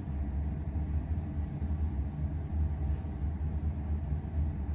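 A steady low rumble, with nothing else standing out.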